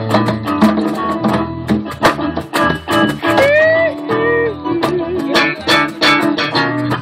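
Live music: strummed acoustic guitar in a steady rhythm over a low bass line, with a short sliding melody line about halfway through.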